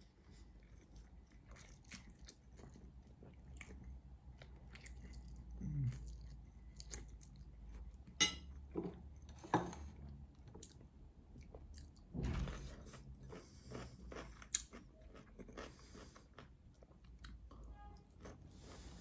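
A person chewing a mouthful of spaghetti, close to the microphone: soft, wet chewing with mouth clicks and smacks, and a few louder bursts a little past the middle.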